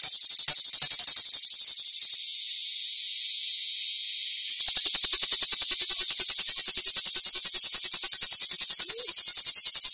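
A cicada singing close by: a loud, high-pitched, rapidly pulsing buzz. It smooths out and dips a little for a couple of seconds, then grows louder and more sharply pulsed from about halfway through.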